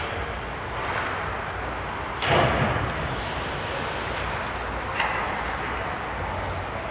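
Ice hockey play on a rink: a steady hiss of skate blades on the ice, with a louder scrape about two seconds in and a sharp click about five seconds in.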